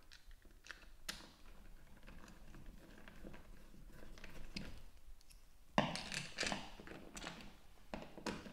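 Faint clicks and taps of a plastic two-gang light switch plate being pressed back onto its wall box and a screwdriver tip meeting the fixing screws, with a louder knock and short scrape about six seconds in.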